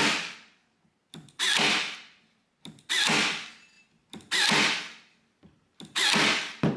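Parkside cordless staple gun firing brad nails five times, about a second and a half apart. Each shot is a sharp bang that fades over about half a second, with a faint click just before it. The nails are not driven fully flush.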